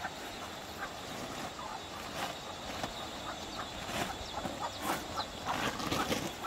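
Farmyard chickens clucking in short, scattered calls, with a louder scuffing rustle near the end.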